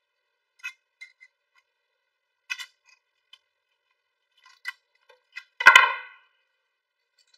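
Small metallic clicks and ticks of wire and pliers being handled while bending a lure's wire harness, with one louder ringing clink about three-quarters of the way through.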